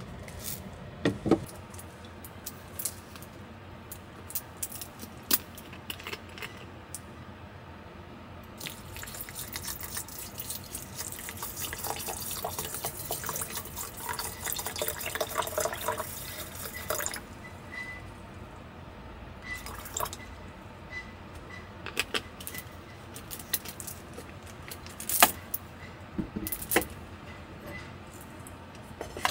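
Water running for about eight seconds midway, with scattered clinks and knocks of small things being handled; the sharpest knocks come about a second in and near the end.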